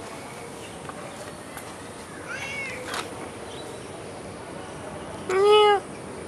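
Domestic cat meowing: one loud meow near the end that rises and then falls in pitch and lasts about half a second. A fainter, higher call comes a few seconds earlier.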